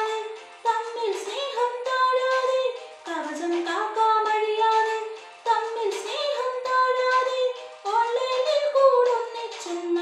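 A girl singing solo, a melody in held notes that slide between pitches, in phrases of about two and a half seconds with short breath breaks between them.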